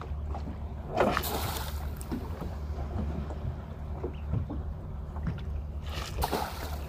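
Small boat's outboard motor idling with a steady low hum, while collapsible net crab traps are thrown overboard and splash into the sea, once about a second in and again near the end.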